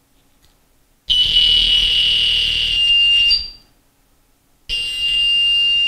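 Circuit-bent toy voice-changer megaphone blaring a loud, shrill, steady electronic squeal through its small speaker in two bursts of about two seconds each, each ending with a short upward chirp.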